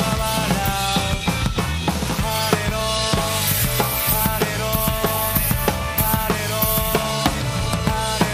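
Acoustic drum kit played along to a rock song, with dense kick, snare and cymbal hits over guitars and singing.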